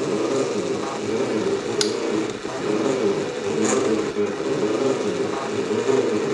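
3D printer's stepper motors running, a pitched whine that shifts in steps and glides up and down as the axes move, with a couple of sharp clicks.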